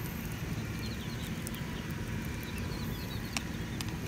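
Small open wood fire crackling steadily, with a sharp pop a little after three seconds in.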